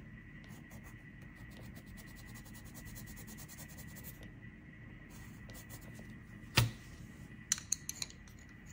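Coloured pencil scratching on paper in quick back-and-forth shading strokes. The strokes stop about two-thirds of the way through. Then comes one sharp knock and a few lighter clicks as the pencil is put down and another is picked up.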